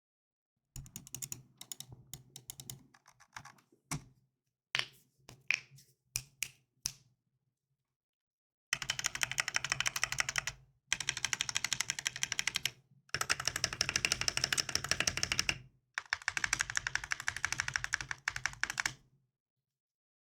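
Mechanical keyboard with KTT Matcha switches freshly lubed with Krytox 205g0, being typed on as a sound test. For about the first seven seconds there are scattered single keystrokes and short clusters, then four runs of fast continuous typing of two to three seconds each.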